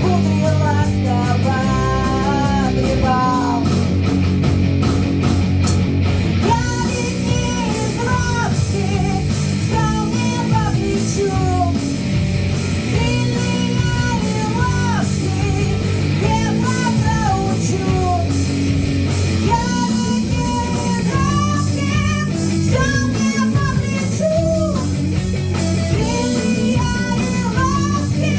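Rock music: a band playing with guitar and a sung melody line.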